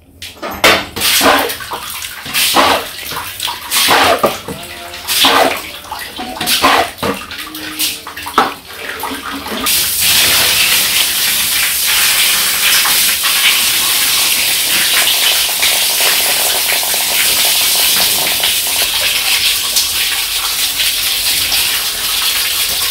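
A run of short, uneven swishes and splashes, then about ten seconds in a steady rush of water as a garden hose pours into a concrete trough, filling it.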